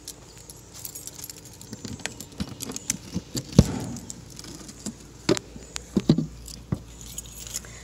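A ring of keys on a carabiner jangling, then a string of sharp clicks and knocks, the loudest a little past three seconds in, as a truck camper's outside storage compartment is unlocked and its door opened.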